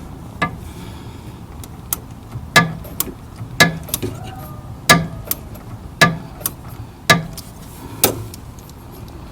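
A series of sharp metallic knocks, six loud ones about a second apart, with lighter clicks in between.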